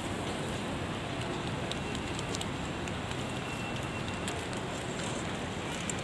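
Steady, even rushing background noise of a busy open-air plaza, with a few faint short high tones about two to three seconds in.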